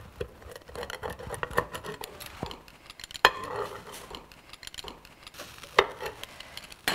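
Metal pizza-cutter wheel rolling through a crisp baked crust and scraping on a pizza stone: crackling and scraping, with a few sharp clicks.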